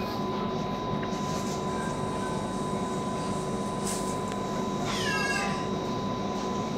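Commuter train running, heard inside the carriage: a steady rumble with a steady whine. About five seconds in, a short high cry falls in pitch, like a meow.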